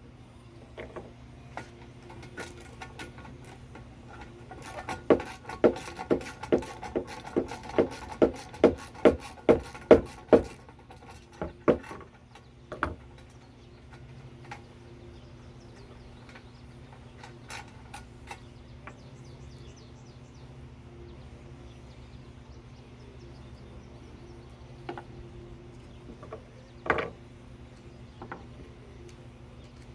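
Hand tools working on a stuck bolt of a toy sandbox backhoe. A run of about a dozen sharp clacks comes roughly two a second, then scattered clicks and knocks follow over a steady low hum.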